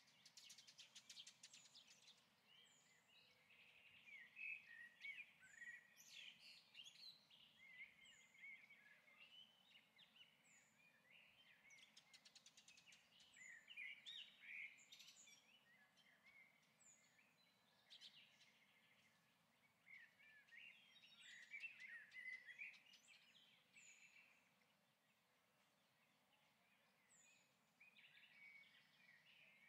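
Faint birdsong: small birds chirping and twittering in bursts, with short high notes that recur every second or two.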